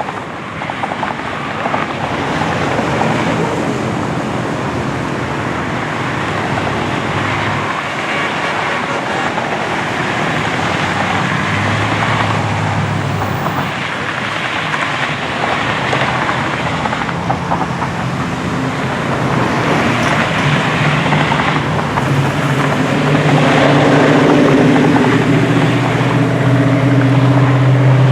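Motor vehicle on the move: steady engine and road noise, getting louder toward the end with a strong, steady low engine hum in the last few seconds.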